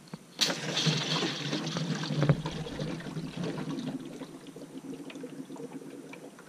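Coolant pressure cap on a 6.7 Cummins diesel being loosened. Pressure in the cooling system escapes in a sudden rush about half a second in, then tapers off over the next few seconds.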